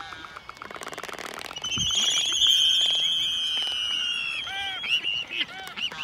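A pair of black-footed albatrosses calling during their courtship dance: a fast rattle for the first second and a half, then a long, high drawn-out call of about two and a half seconds, then several short rising-and-falling calls near the end.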